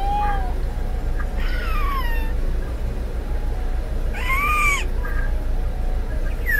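A person's voice making four short, high, meow-like squeals, each sliding down in pitch, a couple of seconds apart, over a steady low hum.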